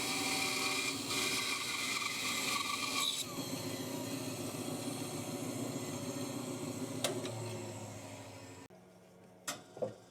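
Bandsaw running and cutting through a dry oak block, then dying away near the end. Afterwards a low hum remains and two short knocks sound.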